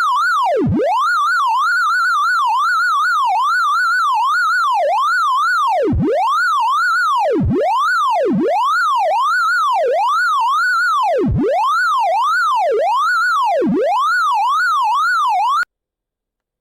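Synthesized sorting-visualiser tones, each tone's pitch following the value of the array element being accessed. A single electronic tone sweeps up and down in a continuous zigzag, about two to three times a second, now and then plunging very low, and cuts off suddenly about a second before the end.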